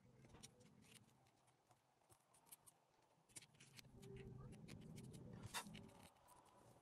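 Faint scratching, rubbing and small clicks of fingers picking and pressing at a paper sand-art board, with one sharper click about five and a half seconds in.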